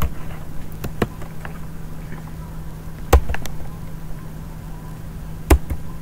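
Scattered keystrokes on a computer keyboard while code is typed, a few light taps and two louder clacks, over a steady low hum.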